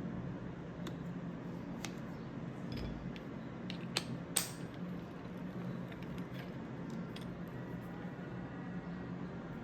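Occasional light clicks and clinks of small hard objects being handled in a kitchen, about a dozen sharp ticks with the loudest a little past four seconds in, over a steady low hum.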